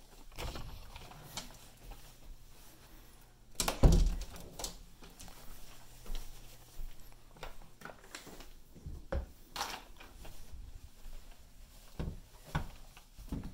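Scattered soft thumps, knocks and handling noise from a person walking through rooms carrying a phone camera, with one louder thump about four seconds in.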